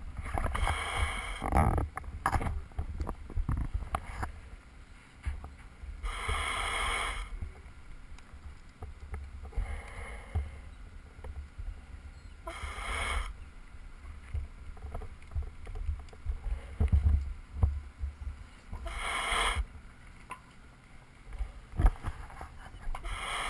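Low steady rumble of a boat on the water, with several short hissing bursts a few seconds apart.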